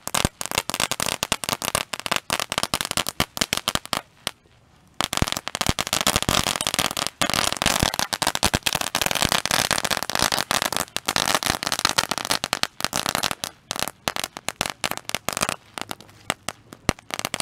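A string of firecrackers going off on the ground: a rapid, continuous run of sharp small bangs that stops briefly about four seconds in, then runs on densely and thins out near the end.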